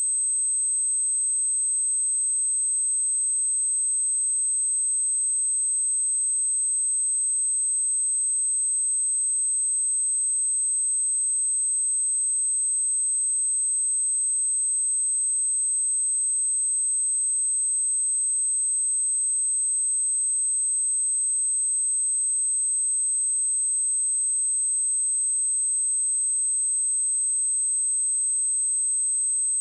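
A steady, unbroken high-pitched pure tone: a sine wave at 8233 Hz, used as a test signal for speakers and headphones.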